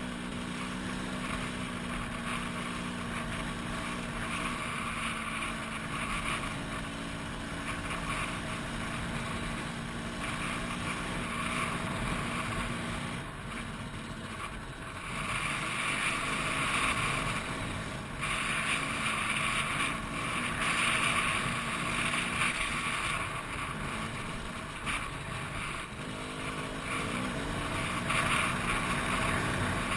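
Trail motorcycle engine running steadily under way, with wind noise on the helmet-mounted microphone. The engine eases off briefly about halfway through, then the wind noise grows louder, and the engine revs up again near the end.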